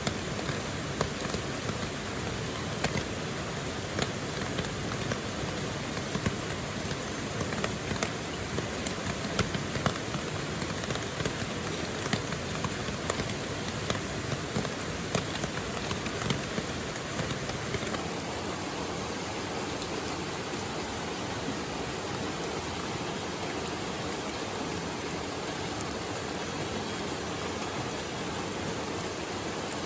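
Steady rain falling, with single raindrops striking close by as sharp ticks. The ticks are more frequent in the first half and thin out after about two-thirds of the way in.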